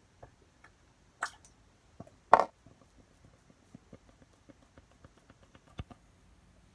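Liquid paint being squeezed and dropped onto a wet painting surface: two short wet splats, the second louder, then a quick run of small drip ticks with one sharper click near the end.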